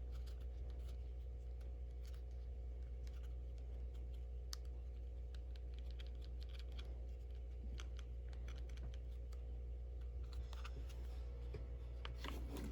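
Scattered light clicks and scratches of small items and packaging being handled, busier near the end, over a steady low electrical hum.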